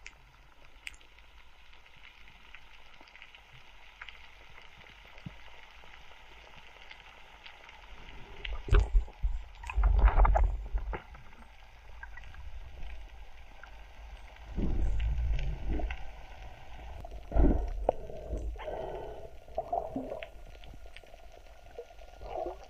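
Underwater water noise heard through a camera housing: a faint steady hiss with scattered clicks, broken by several low gurgling, rushing surges of moving water, the loudest about halfway through.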